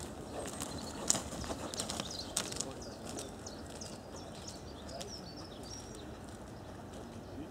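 Small birds chirping in quick, short repeated calls, with a few sharp clicks in the first couple of seconds, the loudest about a second in.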